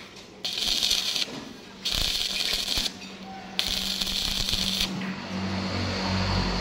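Electric arc welder tack-welding the bracket: three bursts of arc crackle, each about a second long, with short pauses between.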